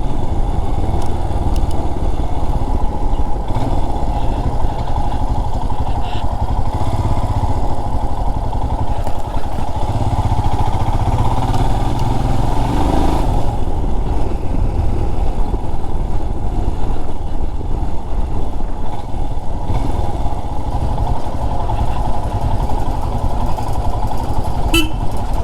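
Royal Enfield Himalayan single-cylinder motorcycle being ridden at a steady pace: continuous engine and road noise with heavy low wind rumble on the rider's microphone.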